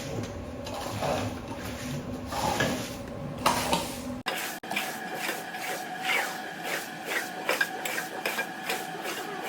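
Carpet being scrubbed in repeated rubbing strokes, roughly two to three a second, over a steady machine hum, with an abrupt edit about four seconds in.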